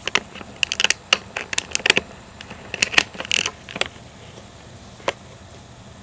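Quick run of sharp clicks and crinkles from handling the plastic packaging and cable of a new iPod touch, with one last click about five seconds in.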